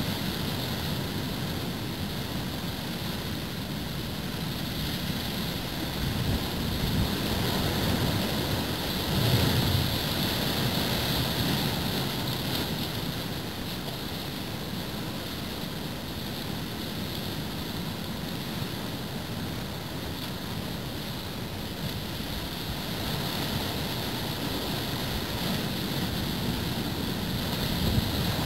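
Typhoon swell surging and washing against a harbour entrance, with wind buffeting the microphone. The surf swells louder about a third of the way through and again at the very end.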